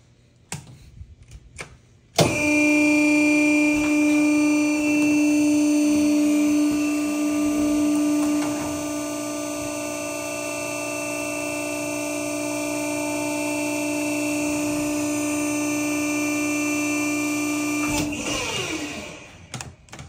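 C&M downstroke cardboard baler's electric motor and hydraulic pump start abruptly after a few light clicks and run a cycle with a steady hum and whine. It is louder for the first several seconds, then shuts off about two seconds before the end and winds down in falling pitch.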